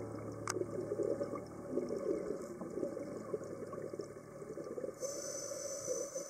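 Scuba diver's exhaled air bubbles gurgling and crackling underwater, with a sharp click about half a second in and a higher hiss starting about five seconds in.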